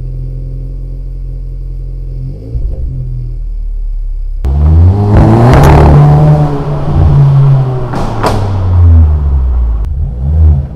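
Seat Leon Mk3 FR's 1.4 TSI turbocharged four-cylinder idling steadily at the tailpipe after a cold start. About four seconds in it gives way to much louder engine revving and accelerating, its pitch rising and falling, with a few sharp cracks.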